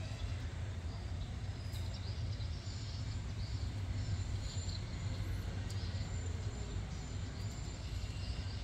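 Outdoor background noise: a steady low rumble with faint, short high-pitched chirps and a few light clicks scattered through it.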